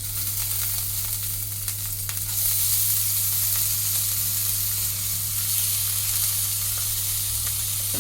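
Freshly drained, still-wet basmati rice sizzling in hot ghee in a non-stick kadhai: a steady frying hiss that grows louder a couple of seconds in.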